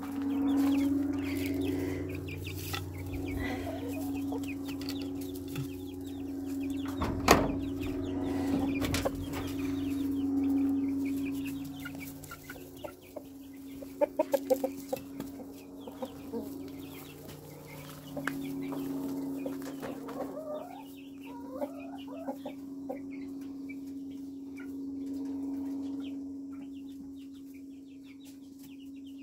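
Domestic hens clucking and calling, over a steady low hum. A single sharp knock comes about seven seconds in, and a quick run of clicks about halfway through.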